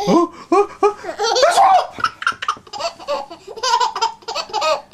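A 7.5-month-old baby laughing hard in a string of short belly-laugh bursts.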